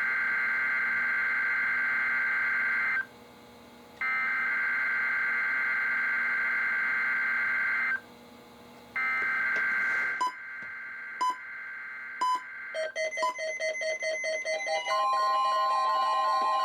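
NOAA Weather Radio digital alert header (SAME data bursts) playing through weather radio receivers: long warbling two-pitch data bursts of about four seconds each, with a one-second gap between them. About ten seconds in, the receivers' alarms start going off one after another, overlapping beeping and pulsing patterns at different pitches, and near the end a steady long warning alarm tone joins in.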